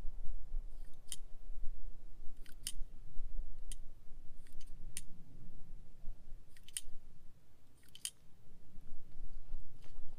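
Revolver being handled between shots: about ten sharp, small metallic clicks at irregular intervals as its cylinder and mechanism are worked.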